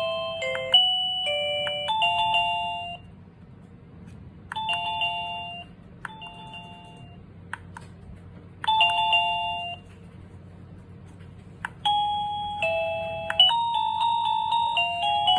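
XINHUI 8517G wireless doorbell playing its electronic chimes: a short multi-note tune, then a two-note ding-dong three times with pauses between (the second one fainter), then another multi-note tune starting near the end.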